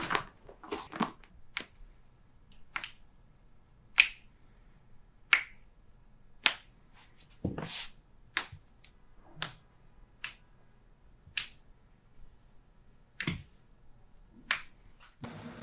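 A series of sharp, snap-like clicks during a chiropractic adjustment, roughly one a second, some louder than others; the loudest comes about four seconds in.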